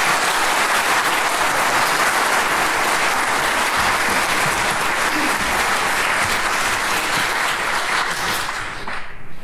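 Audience applauding with steady clapping that fades away near the end.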